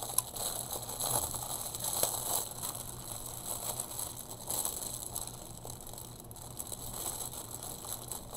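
Clear plastic packaging crinkling and rustling as hands handle a bagged bundle of velvet ribbons, with a few sharper crackles in the first couple of seconds.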